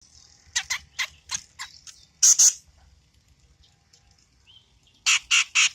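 Grey-cheeked bulbul (cucak jenggot) calling: a quick run of short harsh notes, then two loud notes, and after a pause three more loud notes near the end.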